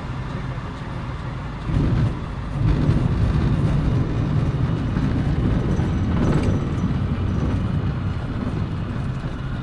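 Cockpit noise of a light aircraft landing on a grass runway: a steady engine and airflow rumble, with a brief louder bump just under two seconds in, then a louder, rougher rumble of the touchdown and ground roll on the grass.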